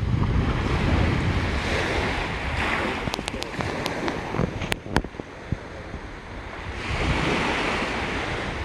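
Surf washing on the beach with wind buffeting the microphone. A few sharp clicks come in quick succession around the middle while the surf eases, and it swells up again near the end.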